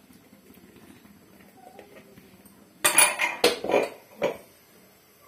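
Kitchen utensil clatter: after a quiet stretch, a quick run of about five loud clanks and clinks of a metal ladle against an aluminium cooking pot, starting about three seconds in and over within a second and a half.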